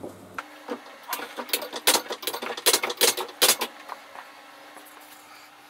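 A quick run of sharp metal clicks and clatters for about three seconds, then a faint steady hum.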